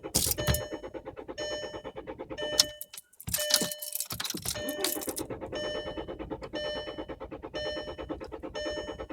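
VW Polo failing to start: a fast, even clicking from under the dash or bonnet, the chatter of a starter solenoid or relay typical of a weak battery. A dashboard warning chime repeats about once a second over it. The clicking and chime stop briefly with two sharp knocks about three seconds in, then start again.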